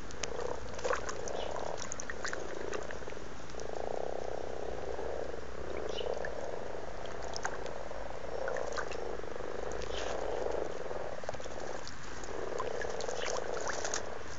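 Common frogs croaking in a breeding chorus: low croaks running together in rolls of a second or two each, repeated with short gaps, with scattered light clicks.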